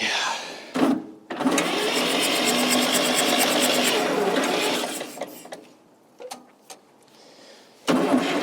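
Fordson Super Major backhoe's diesel engine running loud for about three seconds, then dying away to near quiet.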